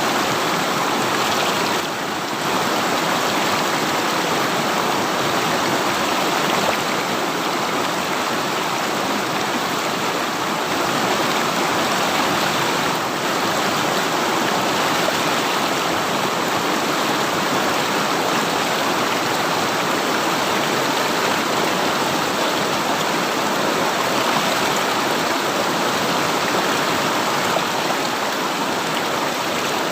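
A river of fast-flowing water rushing and gurgling over rocks, a steady full hiss with no change.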